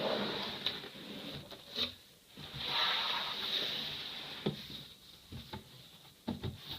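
PC case box and its packing being handled and pulled open: a long rubbing, sliding sound about halfway through that fades away, then a few light knocks near the end.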